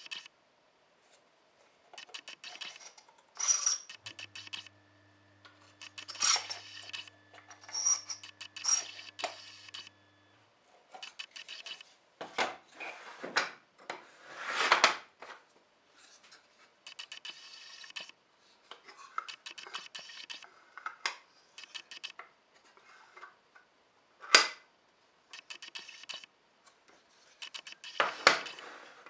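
Small laser-cut plywood boxes being handled: lids and drawers opened and closed, wood sliding and rubbing on wood, with many light clicks and taps. A sharp knock comes about 24 s in, and another near the end as a box is set down on the board.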